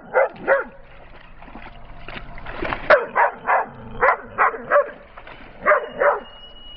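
Dog barking in quick runs of two to four short, high barks, with pauses between the runs.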